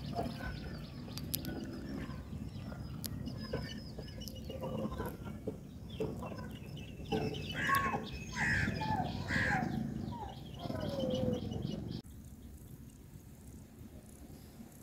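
Birds calling: rapid high chirping, with a run of loud short falling calls in the middle. The sound turns quieter about twelve seconds in.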